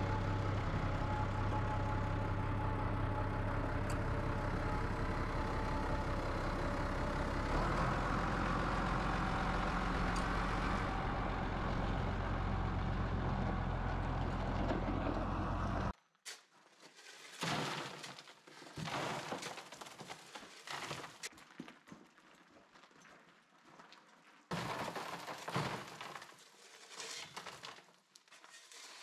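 Front loader's diesel engine running steadily under load, its note shifting partway through; it cuts off abruptly a little past halfway. After that come irregular bursts of gravel crunching and scraping.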